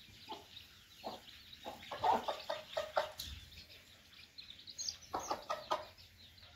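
Mother hen clucking in two runs of short calls, the first about a second in and the second about five seconds in, while her chicks peep thinly.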